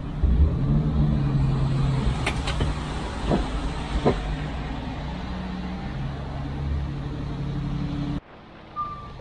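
Unimog truck engine running steadily with a low hum, a few sharp clicks over it in the first half; the sound cuts off abruptly about eight seconds in.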